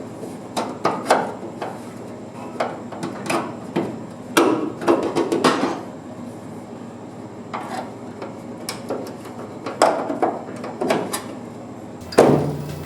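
Irregular knocks, taps and clatter of hand tools and sheet metal being worked, with a few louder bangs about halfway through.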